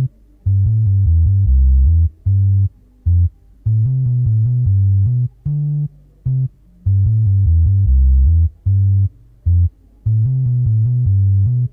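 Bass-guitar instrument in FL Studio playing a reggae bass line on its own, with no drums. It plays low phrases of short plucked notes and longer held notes, broken by gaps, and the two-bar phrase loops.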